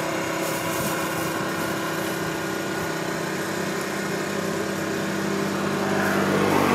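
A small engine or motor running steadily, with a pitch that rises and falls briefly near the end.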